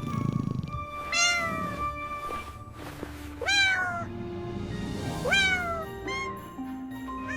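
Kitten meowing several times in short, falling calls, over soft background music.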